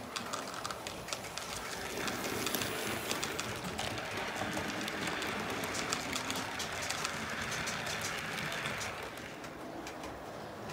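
Model railway train running past on the track: steady rolling rumble with rapid wheel clicks over the rail joints. It grows louder about two seconds in and fades near the end.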